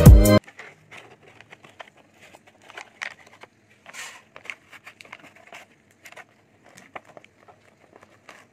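Loud background music cuts off abruptly just after the start. Then come faint, scattered crinkles and clicks of a cosmetic serum's packaging and dropper bottle being handled.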